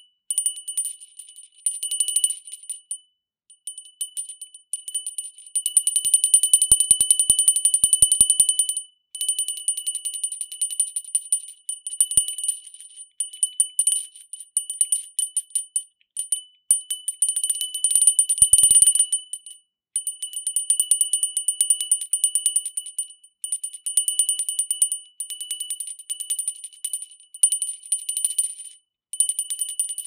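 Small painted-metal hand bell shaken rapidly, its clapper striking many times a second so that it rings continuously at a bright, high pitch. The ringing comes in bursts of one to three seconds with brief pauses between, the longest and loudest burst about six seconds in.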